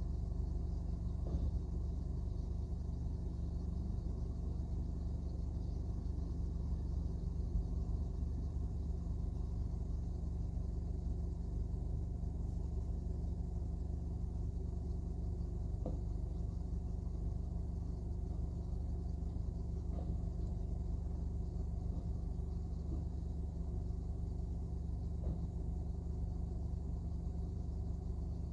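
Rear-loader garbage truck's engine running steadily at a distance, a low rumble with a few faint knocks.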